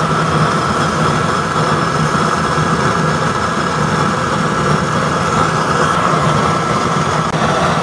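Used-oil stove burning under forced air: a 12-volt high-speed blower running with a steady whine, mixed with the rushing of the oil flame at the coupling-reducer nozzle.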